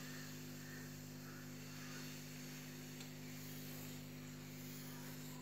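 Steady low hum with a faint even hiss underneath, unchanging throughout; the batter being poured and spread makes no distinct sound.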